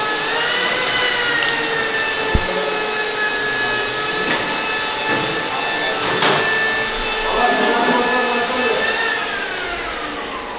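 A power tool's motor running at a steady high speed, a constant whine, then slowing and falling in pitch near the end. A short knock about two seconds in and a click later on.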